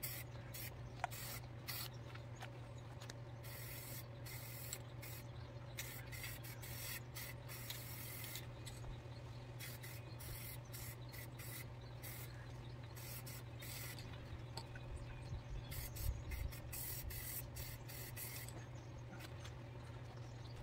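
Aerosol can of Rust-Oleum 2X Ultra Cover spray paint hissing in many short bursts with brief gaps as paint is sprayed, over a steady low hum.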